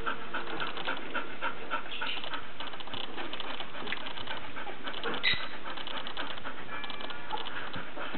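Litter of 19-day-old Airedale terrier puppies squirming together, with a steady fast run of soft clicking and panting sounds and a short high squeak about five seconds in.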